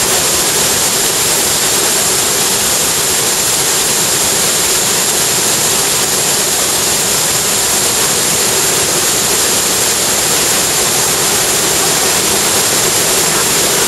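Steady, loud rush of fast-running water, even and unbroken throughout.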